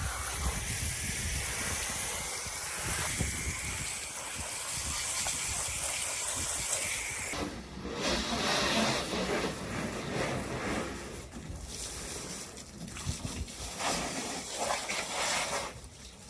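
Water spraying onto a car in a steady hiss for about seven seconds, then stopping and starting in shorter spurts as the car is washed down.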